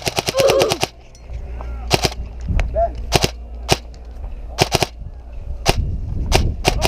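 Airsoft gun firing full auto in a rapid, even burst that stops about a second in, followed by scattered single airsoft shots.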